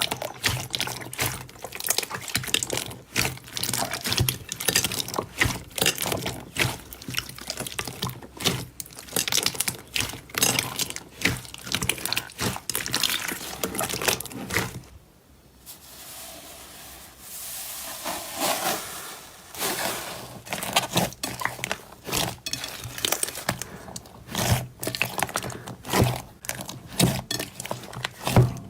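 Slime being squished and worked by hand, with a dense run of wet clicks, pops and crackles. About halfway it gives way for a few seconds to a softer, smoother squelching, then the clicking starts again.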